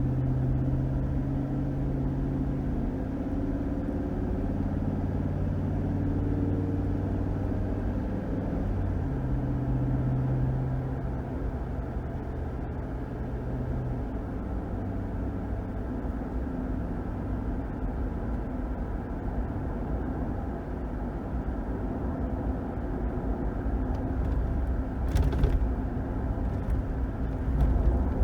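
A 2021 Ram 1500's 5.7-litre HEMI V8 and its tyres on the road while driving: a steady engine drone that steps to new pitches a few times in the first half, then mostly low road rumble, with a brief sharp noise near the end.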